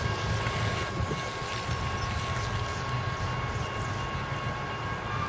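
Steady low rumble and even hiss of cars driving over wet pavement, with an approaching diesel freight train in the mix and a faint steady high whine throughout.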